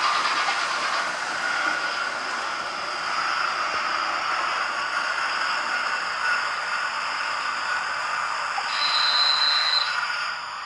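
Train running and drawing to a stop, with a brief high squeal about nine seconds in, after which the sound drops away.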